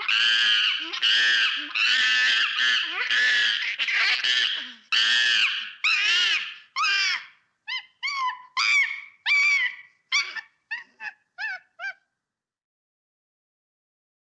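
A monkey giving a rapid series of shrill, pitched calls, each about half a second long. About seven seconds in they change to shorter, choppier chirps, which stop about twelve seconds in.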